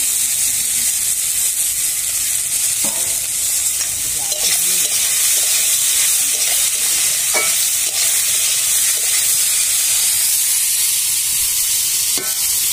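Julienned potatoes sizzling steadily in hot oil in a kadai, freshly added for frying. A metal spatula scrapes and knocks against the pan a few times as they are stirred.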